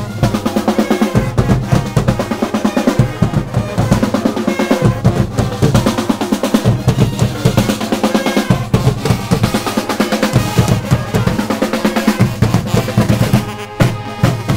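College pep band playing, brass and reeds over snare and bass drums keeping a fast, steady beat.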